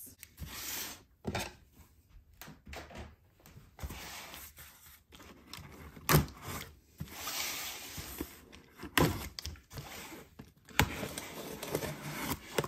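Safety box cutter slitting the packing tape along the seams of a cardboard box, with scraping, slicing noises and a few sharp knocks.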